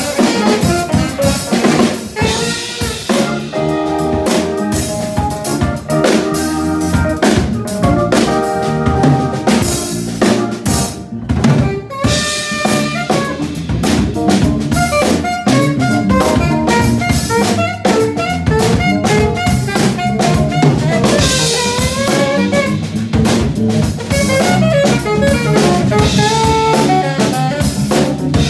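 Live small jazz band playing, with the drum kit to the fore under saxophone and electric guitar lines.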